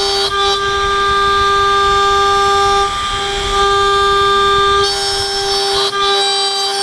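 HSD 10 hp three-phase spindle on a CNC router milling 6061-T6 aluminium plate with a double-spiral end mill: a loud, steady high-pitched whine of several tones together, which breaks and changes tone briefly a few times.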